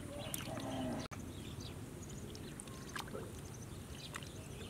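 Snail shells clicking faintly as hands work them in a woven bamboo basket sieve standing in shallow water, with light water sounds over a low steady outdoor rumble.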